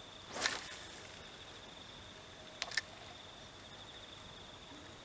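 Insects chirring in a steady, high, finely pulsing drone. About half a second in a brief scraping rustle stands out loudest, and two sharp clicks follow close together a little over two and a half seconds in.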